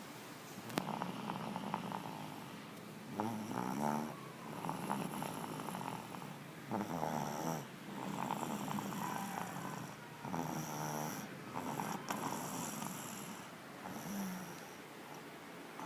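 Steady snoring from a sleeper, about one rattling snore every one and a half seconds.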